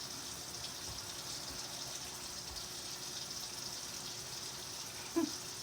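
Kitchen tap running steadily, an even hiss of water.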